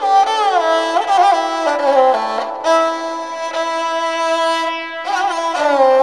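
Background music: a single melody of long held notes joined by sliding pitch ornaments.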